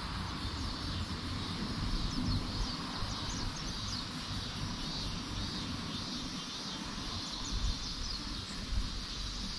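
Outdoor ambience: wind rumbling on the microphone, with short high bird chirps now and then over a steady high background hiss.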